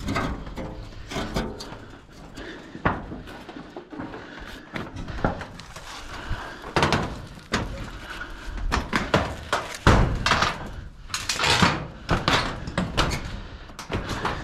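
Irregular knocks, clanks and scrapes on a corrugated sheet-metal roof as a metal stovepipe and a rope-tied sack chimney sweep are handled and someone walks across the roof. There is a denser stretch of scraping and rustling about three-quarters of the way through.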